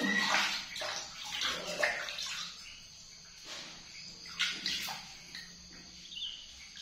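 Water splashing and sloshing in a large aluminium basin as hands wash a baby monkey, in irregular splashes.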